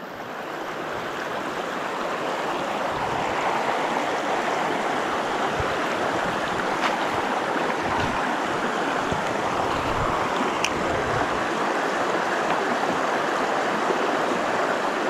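Shallow mountain creek running over rocks and stones: a steady rush of water that grows louder over the first couple of seconds, then holds even. A few faint ticks come over it.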